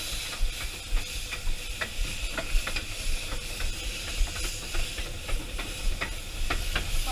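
Steam hissing steadily in the cab of the steam locomotive Green Goddess, over a low rumble, with scattered light clicks and knocks.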